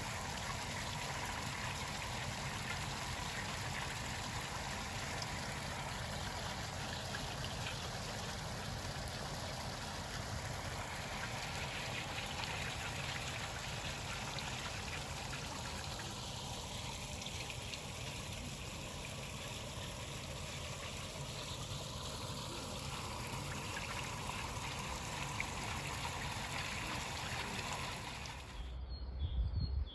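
Steady rushing of a flowing stream of water, cutting off abruptly near the end.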